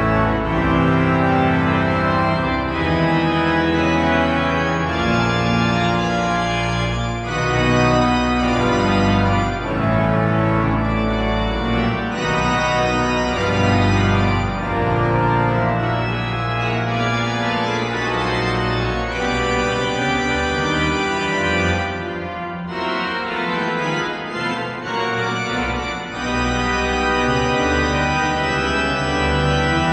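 Pipe organ playing dense sustained chords over deep pedal notes, the harmony shifting every second or so. The bass drops out for a few seconds a little past twenty seconds in before the full sound returns.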